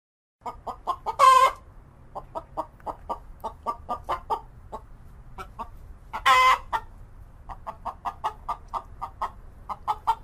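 Chicken clucking in a quick, uneven series, broken twice by a short, loud squawk: once about a second in and once a little past midway.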